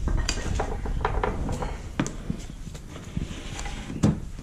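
Scattered metal clinks and knocks as a transmission on a transmission jack is shifted and lined up, with a sharper knock about four seconds in.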